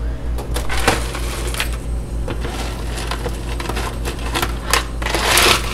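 Ice cubes clattering and clinking as they are scooped from an ice bin, with a longer scraping rush of ice near the end.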